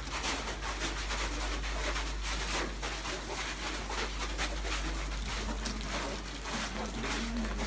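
Footsteps crunching and shuffling irregularly on a packed-snow floor, over a steady low hum.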